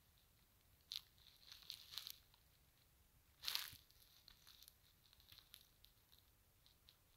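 Near silence with faint scattered crackles and clicks, one brief louder crackle about halfway through.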